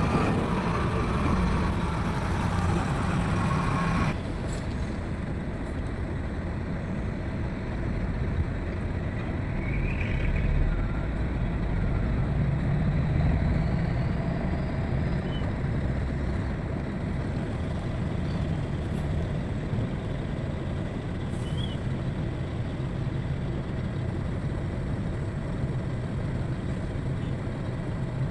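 Heavy diesel machinery running with a steady low rumble; a louder, brighter noise layered on top cuts off suddenly about four seconds in.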